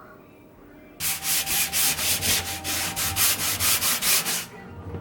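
Rapid rhythmic rubbing or scratching strokes, about four a second, starting a second in and stopping sharply after about three and a half seconds.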